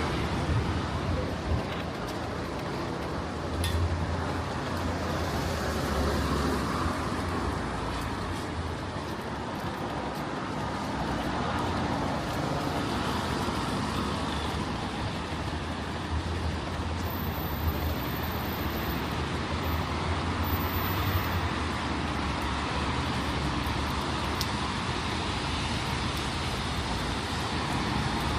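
City street traffic: cars and other vehicles passing steadily, with a continuous low engine rumble under the noise of the road.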